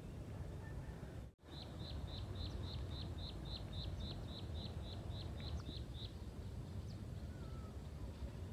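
A bird calling a rapid series of identical short, high notes, about four a second, for around four and a half seconds, over a steady low rumble. The audio drops out completely for a split second just before the calls begin.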